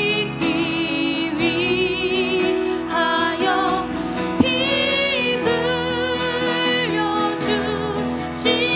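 A woman singing a slow hymn in Korean over keyboard accompaniment, holding long notes with vibrato. A brief click sounds about four and a half seconds in.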